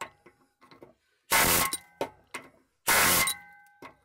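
Pneumatic air hammer with a chisel bit firing two short bursts of about half a second each, about a second and a half apart, against a rusted exhaust joint to break it apart. The metal exhaust pipe rings after each burst.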